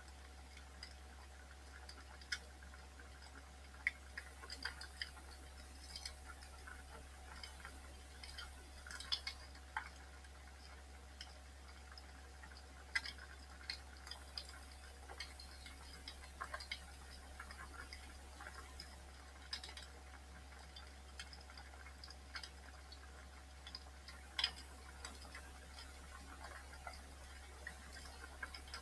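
Wood fire burning in a fireplace, crackling with irregular sharp pops and snaps, a few louder than the rest.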